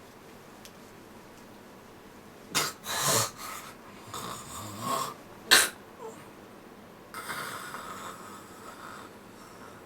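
A person snoring: after a quiet start, a run of short loud snores about two and a half seconds in, the sharpest and loudest near the middle, followed by a softer, longer hissing breath.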